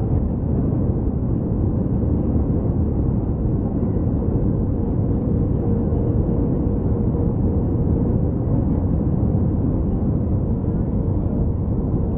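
Jet airliner cabin noise on final approach: the wing-mounted turbofan engine and rushing air make a steady, even rumble, heard from inside the cabin, with a faint steady hum over it.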